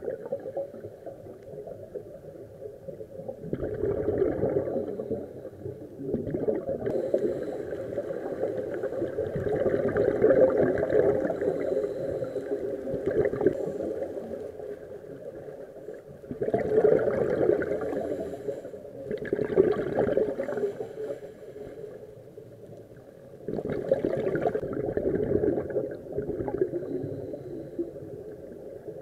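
Scuba diver breathing through a regulator, heard underwater: several long bursts of rushing exhaust bubbles a few seconds each, with quieter stretches between.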